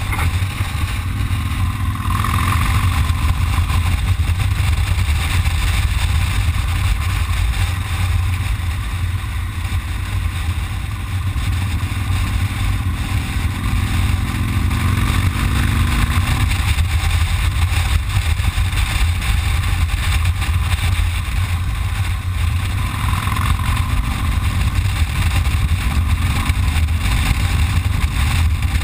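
Cruiser motorcycle engine running at riding speed, heard from the rider's seat over a steady low rush of wind on the microphone. The engine note rises a little a few times as the throttle opens.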